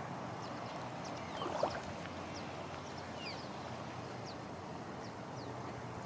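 Steady wash of small waves along a tropical beach, with short, high bird chirps scattered throughout and one brief louder sound about a second and a half in.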